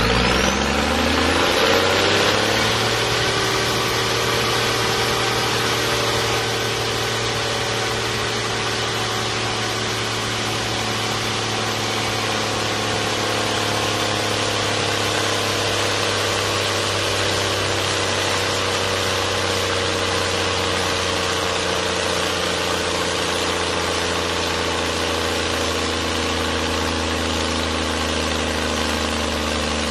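Dutra 1000 tractor's diesel engine revving up over about two seconds, then held at high revs under dynamometer load, running steadily as its pitch falls slowly.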